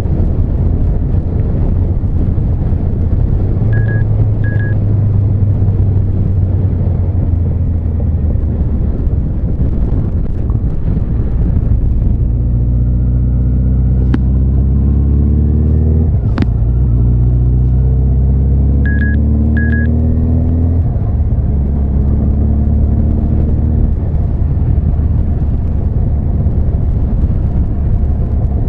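Honda CB1300 Super Bol d'Or's inline-four engine running under way with steady wind rush. About halfway through the engine note climbs, drops sharply at a gear change and climbs again before easing off. Twice a pair of short high beeps sounds.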